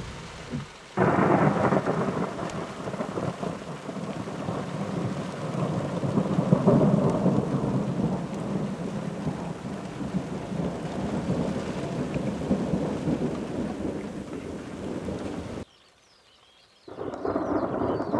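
Heavy rain on a car, with thunder rumbling, heard from inside the car. It starts suddenly about a second in and is dense and steady. It drops out abruptly for about a second near the end, then comes back.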